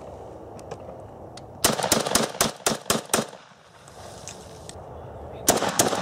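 AK-47 assault rifle firing on full automatic: a rapid burst of about ten shots starting about a second and a half in, then a second burst begins near the end.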